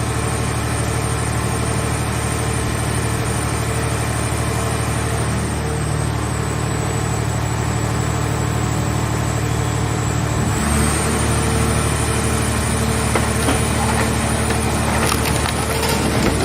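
Scrap car shell baler's engine running steadily. About ten seconds in its note shifts, and near the end comes a run of cracks and clicks as metal is crushed.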